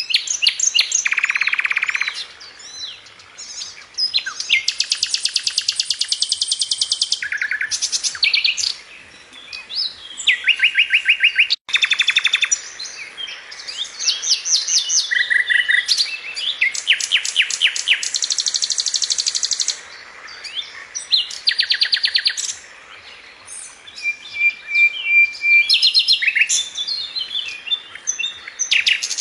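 A songbird singing a long, varied song of fast trills and rapid repeated notes, phrase after phrase with short pauses between them. The sound cuts out for an instant about a third of the way through.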